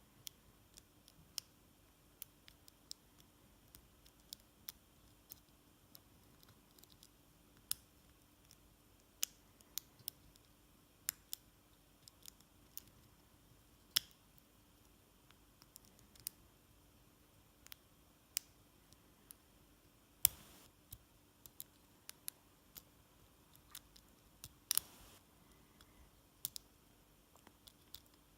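Lock pick working the pin stacks of a KASP 14040 padlock: faint, irregular metallic clicks and ticks as pins are lifted and set, with two louder, longer clicks about twenty and twenty-five seconds in.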